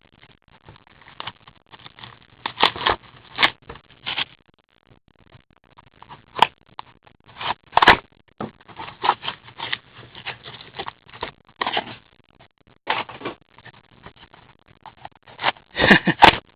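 Hockey card packs being opened and the cards handled: irregular crinkling, scraping and clicking of wrappers and cards, with a few sharper snaps.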